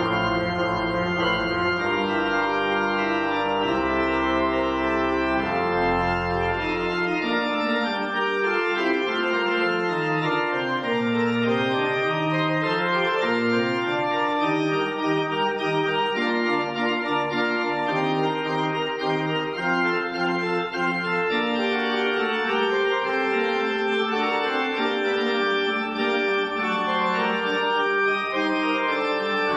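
Pipe organ playing sustained chords. Deep pedal bass notes sound for the first several seconds and then drop away, leaving a lighter texture with a bass line that dips down and climbs back up.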